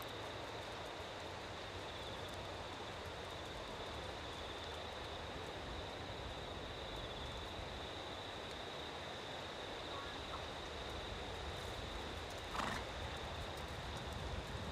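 Horse trotting on a lunge line over a sand arena: soft, muffled hoofbeats under a steady high-pitched hum, with one short louder noise near the end.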